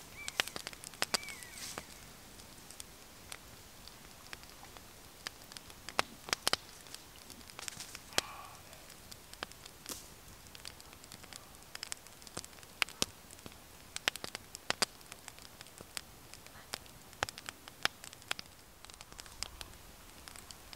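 Wood fire crackling in a small twig-burning camp stove, the Warmbond BondStove Mini: irregular sharp pops and snaps.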